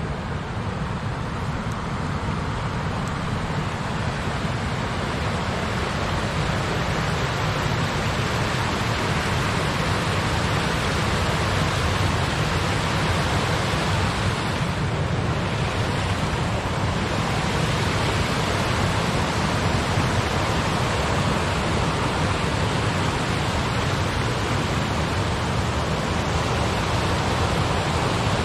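Steady rushing of river water pouring over low rock-ledge cascades, growing slowly louder as the cascades come closer.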